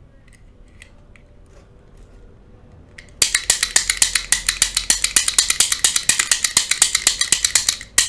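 Brockhage manual pick gun being fired again and again into a lock cylinder's keyway: a fast run of sharp metallic snaps, several a second, beginning about three seconds in after a few faint clicks.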